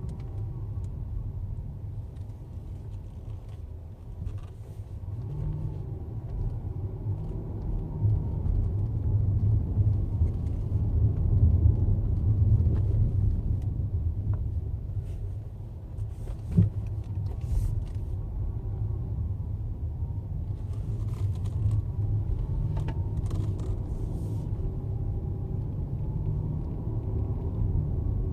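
Cabin sound of a 2015 Mercedes-Benz S600 being driven: steady low road and engine rumble with a faint whine that wavers up and down with engine speed. This is the irritating whine the owner hears between idle and 2000 rpm, which Mercedes calls acceptable manufacturing tolerance. There is a single knock a little past halfway.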